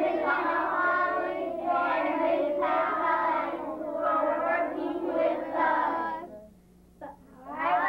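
A group of children singing together in unison; the singing breaks off about six seconds in, and voices start again near the end.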